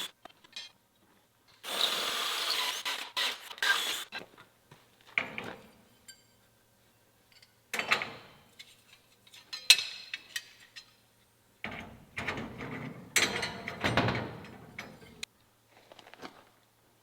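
Metal shop work on steel tools: separate bursts of rasping, grinding-like noise and sharp knocks, the longest burst near the end over a steady motor hum.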